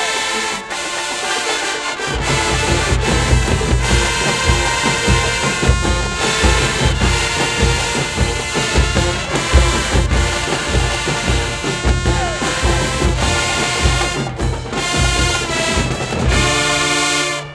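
HBCU-style high school marching band playing from the stands: massed brass with sousaphones, joined about two seconds in by a heavy low drum beat. It ends on a held brass chord.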